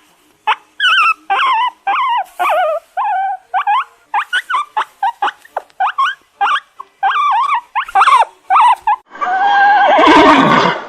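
An animal giving a string of short, high yelping calls with wavering pitch, two or three a second. Near the end comes one longer, harsher call that falls in pitch.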